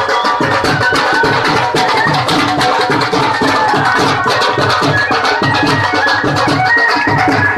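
Loud music with a fast, steady drum beat and a melody line over it.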